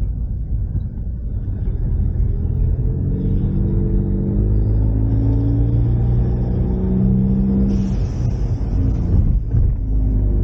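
Ford Mustang EcoBoost's turbocharged four-cylinder engine pulling under acceleration, its pitch rising steadily for several seconds. A short hiss comes about eight seconds in, and then the revs drop.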